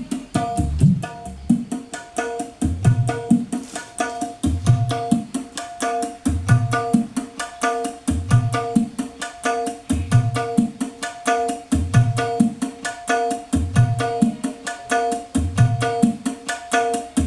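Recorded music with hand-drum percussion over a fast, steady ticking beat and repeated pitched notes, played loud through a sound system for a sound check.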